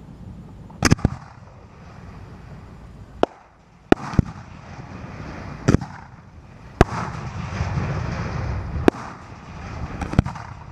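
Aerial fireworks being fired: about nine sharp bangs at uneven intervals, several coming in quick pairs, over a steady low rumbling background.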